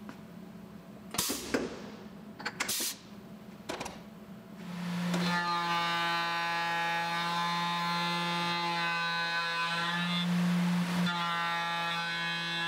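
A few sharp clicks and knocks, then about five seconds in a Tormach PCNC 770 mill's spindle runs up and an end mill cuts into an aluminium block, a steady whine with many overtones that holds through the cut.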